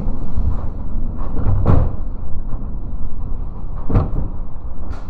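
Typhoon-strength wind buffeting the microphone with a steady low rumble. Several sharp knocks cut through it, the loudest about a second and a half in and two more near the end.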